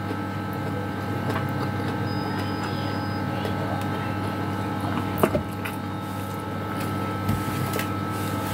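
A steady mechanical hum from a kitchen appliance, with a few short eating clicks and knocks as string beans are picked up and eaten by hand; the sharpest comes about five seconds in.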